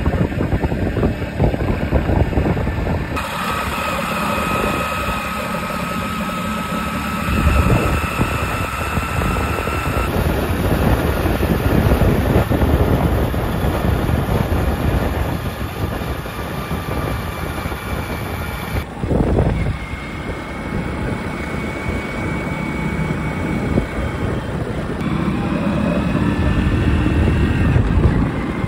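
Motorcycle engine running while the bike is ridden along a road, a steady dense running noise whose character changes abruptly three times where separate clips are joined.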